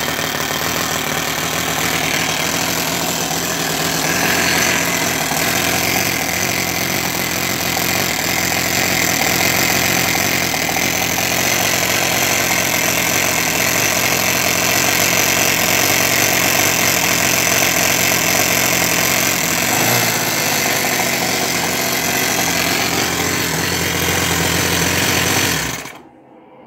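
Toyan single-cylinder four-stroke model engine running steadily on a coil-on-plug spark ignition. It stops abruptly near the end.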